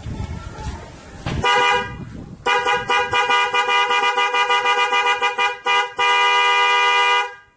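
Newly installed Denso snail-type car horn being tested: one short blast, then a quick run of short honks, then one long blast that cuts off near the end.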